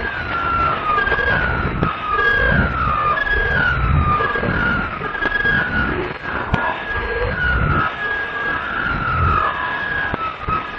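Edited, backwards-played music: a repeating run of short high gliding tones that slide downward, siren-like, over irregular low bass thuds.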